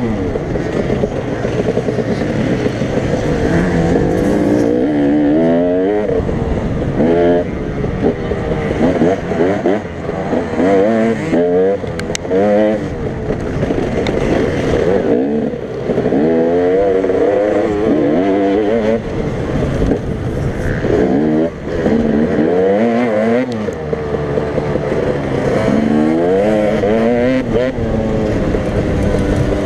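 Onboard dirt bike engine revving again and again, its pitch climbing and dropping every second or two as the rider opens and closes the throttle over rough ground.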